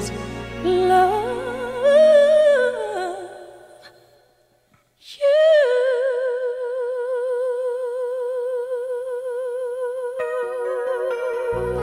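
Background song with a solo vocal line: a rising and falling phrase that fades away about four seconds in, then one long note held with vibrato over quiet accompaniment.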